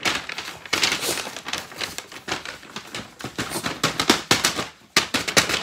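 Brown paper bag rustling and crinkling as it is handled and packed, in a dense run of irregular crackles with a short pause near the end.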